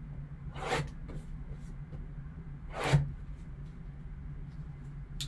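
Two short rustling, scraping swishes, about two seconds apart, from the sealed 2013 Panini Limited football card box's packaging being handled and opened, with a few faint ticks and a steady low hum underneath.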